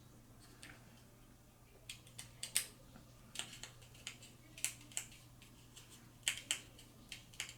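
Small sharp plastic clicks, irregular and sometimes in quick pairs, as a HeroClix figure's combat dial base is turned click by click. A faint steady low hum runs underneath.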